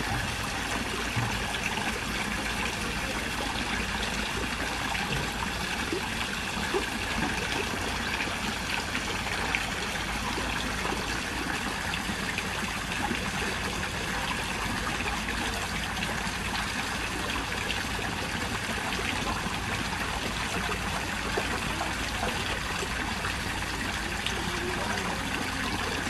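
Steady trickling of running water.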